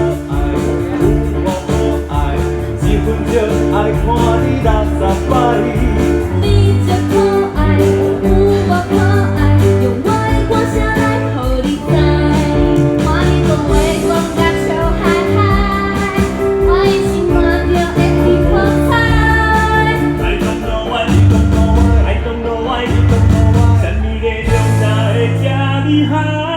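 Live band playing an upbeat song, with a steady beat and a sustained bass line.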